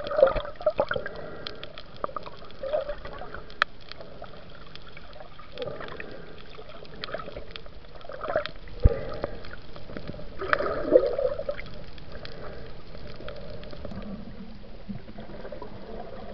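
Water sounds picked up by a submerged camera: an uneven, muffled wash with scattered sharp clicks.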